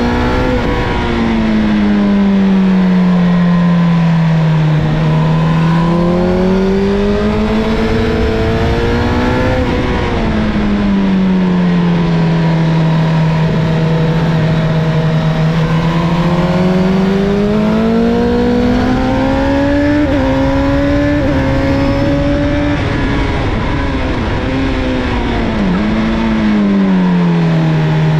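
Honda CBR1000RR Fireblade's inline-four engine heard on board at track pace, the revs climbing and falling repeatedly through gear changes and braking, with a steady rush of wind over it.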